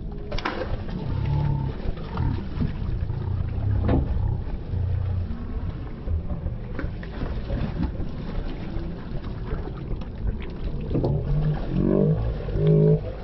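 Low rumble of a boat under way on the river, with wind buffeting the microphone and a few knocks. Near the end, drawn-out wavering voices come in.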